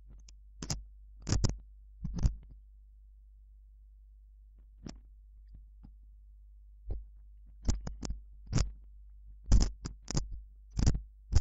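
Computer keyboard keys tapped in short, irregular runs, sparse in the middle and quicker near the end, over a steady low hum.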